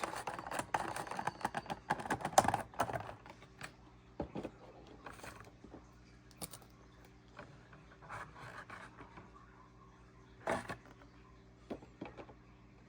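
Packaging being handled while a model airliner is taken out of its box: close plastic and cardboard rustling with quick clicks for the first few seconds, then scattered light clicks and taps.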